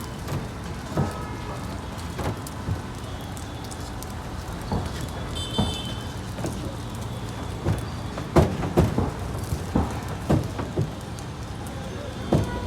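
Steady sizzling hiss from a street-food griddle, with a run of sharp metal knocks that come thickest about two-thirds of the way in, from a spatula striking the hot plate.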